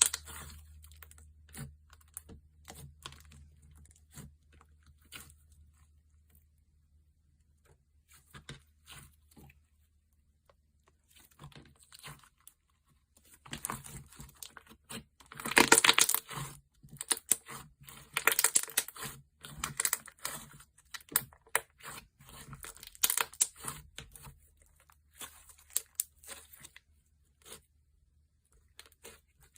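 Thick slime being stretched and pressed by hand, giving crackling clicks and tearing sounds. They come sparsely for the first half, then in louder bursts from about halfway in.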